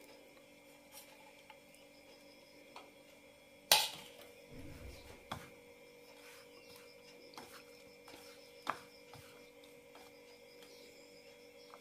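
Faint hand-mixing of grated tapioca and shredded coconut on a ceramic plate: a few light taps of fingers against the plate, with one sharp click about four seconds in, over a steady faint hum.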